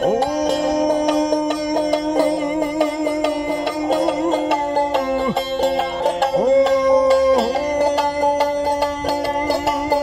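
Traditional Punjabi folk music played on a long-necked string instrument with a round gourd-like body: a steady drone under a sliding melody.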